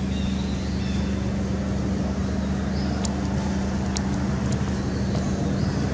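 Steady low motor-like hum with faint short high-pitched chirps above it, and two sharp clicks about three and four seconds in.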